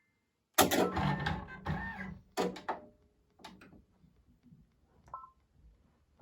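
Brother VR embroidery machine being set up: mechanical rattling over a steady motor hum for about two seconds, then scattered clicks and a short electronic beep.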